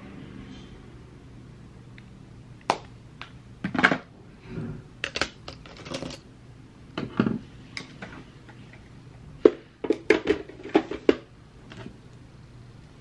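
Makeup compacts and small plastic containers being handled on a desk: a string of irregular clicks, clacks and light knocks as they are picked up, closed and set down, starting a few seconds in and thickest near the middle.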